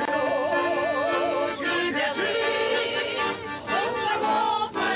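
A button accordion (bayan) playing a song while a mixed group of men and women sing along with it, voices wavering with vibrato over the accordion's sustained chords.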